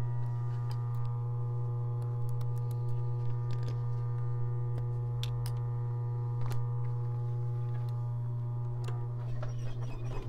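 Adler 373 industrial sewing machine's motor humming steadily at rest, the needle not stitching, with scattered light clicks from leather pieces being handled.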